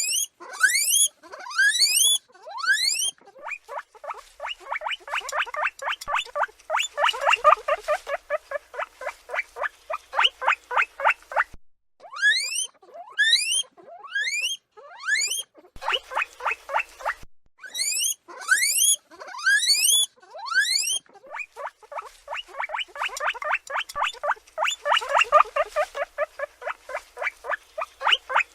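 Guinea pig wheeking: high squeals that sweep sharply upward in pitch, in groups of two or three. These alternate with long fast runs of short squeaks, about four or five a second, with brief pauses between bouts.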